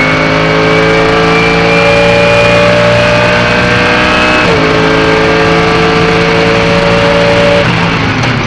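Mercedes-AMG GT3's 6.2-litre V8 heard from inside the car at full throttle, its note climbing slowly through a long gear, with a quick upshift about halfway through. Near the end the engine note breaks off and the sound eases as the throttle lifts.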